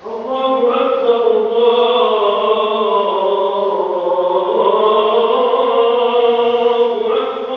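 A muezzin chanting the call to prayer (adhan): one long, drawn-out phrase from a single male voice, its pitch winding slowly up and down. It begins just after the start and dies away near the end.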